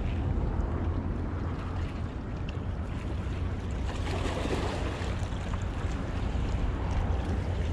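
Wind buffeting the microphone, a steady low rumble, over small waves washing against the rocks of the shore.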